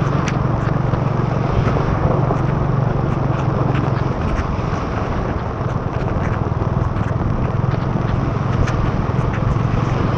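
Motorbike engine running at a steady pitch while riding through heavy rain, under a constant wash of rain and wet-road noise, with frequent sharp ticks of raindrops hitting the camera.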